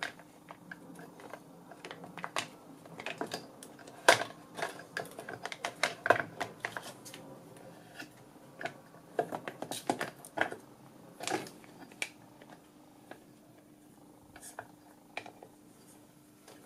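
Stacked round circuit boards of a vintage Honeywell three-axis reference system clicking and knocking against each other and their metal standoffs as they are handled and fanned apart by hand. The clicks are irregular, with a few louder knocks, over a faint steady hum.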